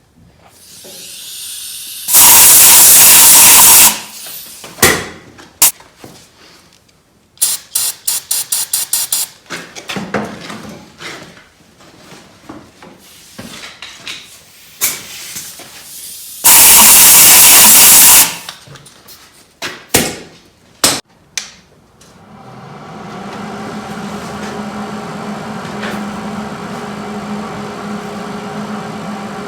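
Two loud blasts from a compressed-air blow gun, each about two seconds long, blowing out the recess around a broken exhaust stud in an aluminium cylinder head, with clicks and a quick rattle of tool handling between them. Near the end a steady machine hum starts.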